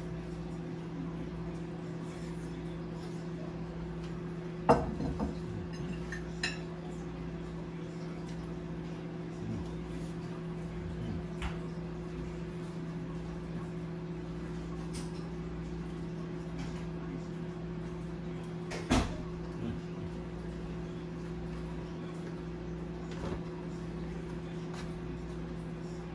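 A few sharp knocks and clatters of kitchenware, the loudest about five seconds in and another near nineteen seconds, over a steady low hum.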